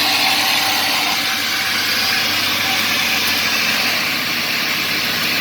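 Heavy diesel earthmoving machine running steadily under load, a dense mechanical din of engine and hydraulics.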